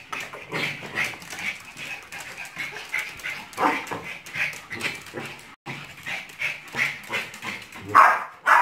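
Pomeranian spitz dogs whining and yipping in a quick string of short, high cries, the sound of dogs excitedly greeting their owner; the loudest cry comes near the end.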